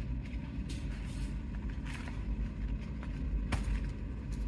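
Hands pressing peat moss down firmly around a cutting in a pot, giving a handful of short rustles and crackles, over a steady low rumble.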